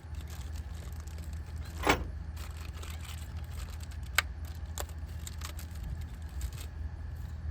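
A few sharp clicks and clinks of small parts or tools being handled, the loudest about two seconds in, over a steady low hum.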